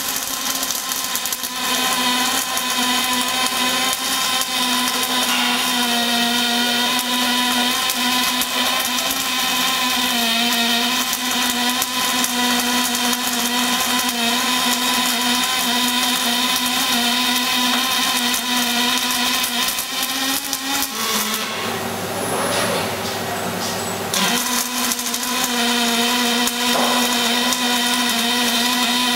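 Robotic MIG/MAG welding arc laying a seam on a steel axle tube: a steady, loud buzzing hum. The buzz drops out for a couple of seconds about three quarters of the way through, then resumes.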